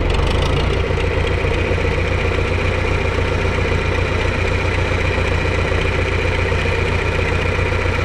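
John Deere 3010 tractor engine idling steadily.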